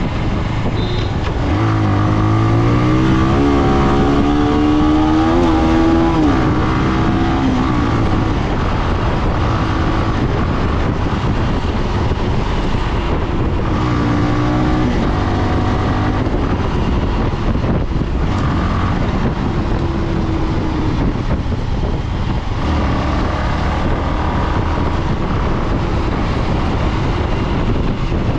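Motorcycle engine accelerating hard, its note climbing in several pulls through the gears from about two seconds in and again about halfway through. Under it runs a steady rush of wind and road noise.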